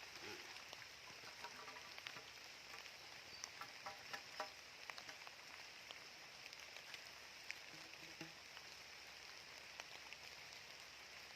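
Near silence: a faint steady hiss of outdoor ambience with scattered small ticks and drip-like clicks.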